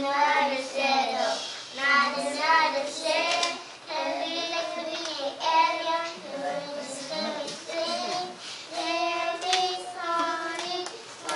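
A group of young children singing a song together in held, wavering notes.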